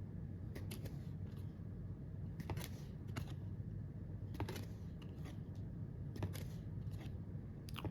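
Hockey trading cards being handled and flipped through by hand, with light scattered clicks and rustles of card stock.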